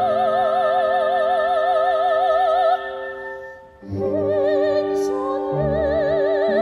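Operatic soprano singing with orchestral accompaniment: a long high note with a wide vibrato fades out about three seconds in, a brief lull follows, and a new phrase begins about a second later over held orchestral chords.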